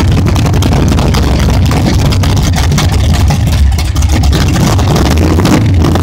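Built 454 big-block V8 with a 1080 Dominator carburettor running loudly and fairly steadily, with a brief dip about four seconds in.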